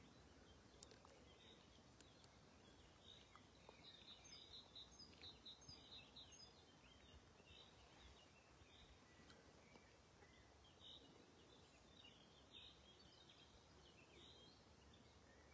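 Faint birdsong over a near-silent background: a quick run of high chirps about four to six seconds in, then scattered chirps later on.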